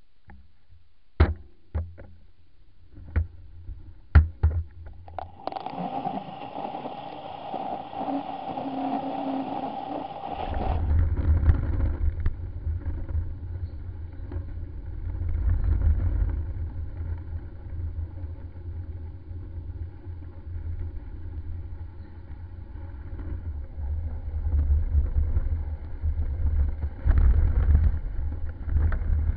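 Riding noise picked up by a handlebar camera on a snowy road: wind buffeting the microphone as a strong, uneven low rumble, with a few sharp knocks in the first seconds and a steadier hum carrying a held tone for about five seconds in the middle that cuts off abruptly.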